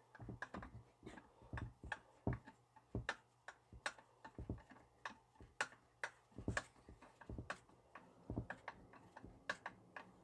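Irregular light clicks and taps, roughly one or two a second, from a screwdriver and the plastic top cover of an Echo chainsaw as the cover is fitted and screwed down by hand.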